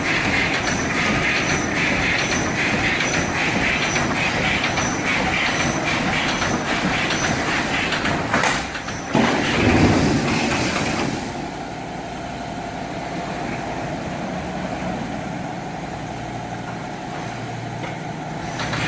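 CNC welded wire mesh machine running, with a regular mechanical clacking about twice a second as it feeds and welds wire. About eight seconds in there is a louder clunk and surge, after which the machine goes on more quietly with a steady low hum.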